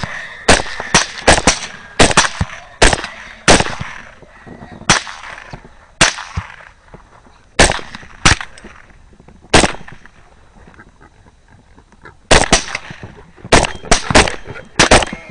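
Rapid semi-automatic rifle fire at a group of feral hogs: about twenty shots. They start as a fast string a few tenths of a second apart, space out, stop for about two seconds after ten seconds in, then come quickly again near the end.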